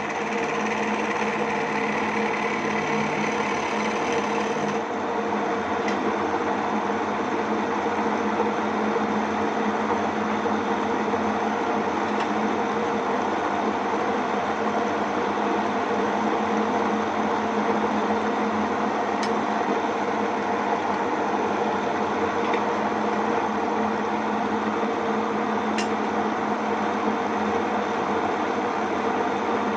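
Homemade wood lathe's electric motor running steadily with a constant hum, a few faint clicks over it.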